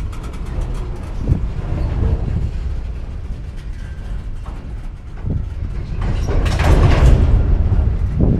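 Empty coal train of hopper cars rumbling on the track, with a sharp bang about a second in and another about five seconds in. From about six to seven and a half seconds there is a louder stretch of metal crashing and creaking from the cars, typical of the train stopping and restarting.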